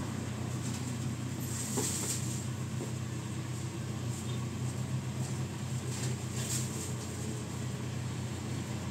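A motor vehicle's engine running with a steady low hum, with brief hissing sounds about two seconds in and again past the middle.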